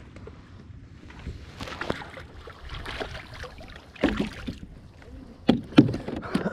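Water splashing and sloshing against the side of a plastic fishing kayak, with a few sharp knocks on the hull near the end.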